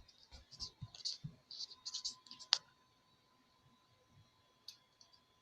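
Light clicks and taps from handling a Kidde carbon monoxide detector, with one sharper click about halfway through. After that it goes quiet apart from one more click near the end.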